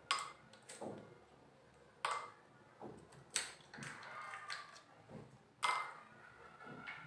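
Ice cubes dropped one at a time into small glass tumblers, each landing with a sharp clink that rings briefly; several clinks, a second or two apart.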